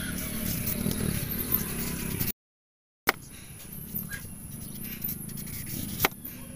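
Knife peeling the skin off a papaya over a stone board on a woven bamboo tray: soft cutting and scraping with scattered small clicks, and a sharp knock about six seconds in. A low hum fills the first two seconds, then the sound cuts out for under a second.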